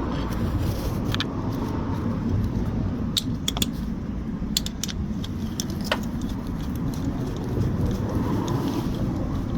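Metal tools and motorcycle sidestand parts clicking and clinking lightly as they are handled, several short sharp clicks in the first six seconds, over a steady low rumble.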